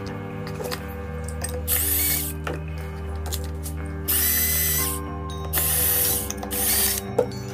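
Cordless drill-driver driving screws into a plastic housing in four short bursts of whirring motor.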